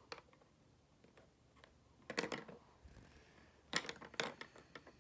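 Plastic markers clicking and clacking against each other as they are handled and picked out. There are a few faint, scattered clicks, with the loudest two clacks coming about four seconds in.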